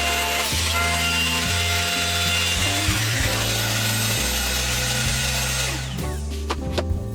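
Cordless biscuit jointer running and cutting into wood, its noise falling away about six seconds in.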